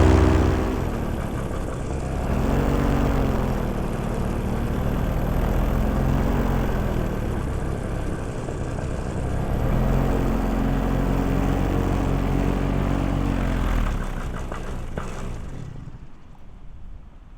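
Paramotor engine and propeller throttled back from full power, its note rising and falling several times as the throttle changes, over a rush of wind noise. Near the end the engine sound falls away.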